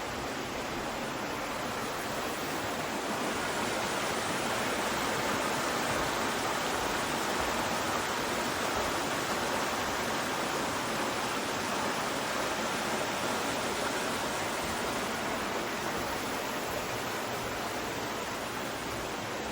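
Steady rush of flowing water, growing a little louder a few seconds in and then holding.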